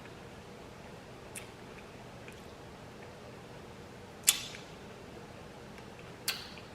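Eating a baked barbecue chicken wing close to the microphone: a few sharp, wet mouth clicks and smacks, the loudest about four seconds in, over a quiet background.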